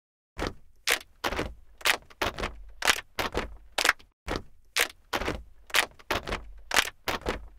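A run of sharp clicks starting about half a second in, roughly three a second at uneven spacing, each with a short ring.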